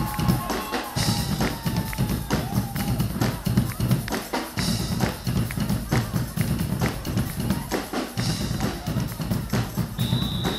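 Guggenmusik carnival band playing: drum kit and marching drums beating a fast rhythm with cymbal crashes. Brass notes stop about three seconds in, leaving mostly drums, and a short high held tone sounds near the end.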